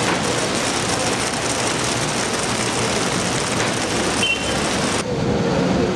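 Steady noise of a Santa Teresa open-sided tram car running close by on its street track, with a short high squeak about four seconds in.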